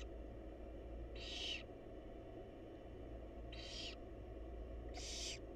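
Barn owls giving harsh, hissing screeches: three of them, each about half a second long and a second or more apart, over a steady low hum.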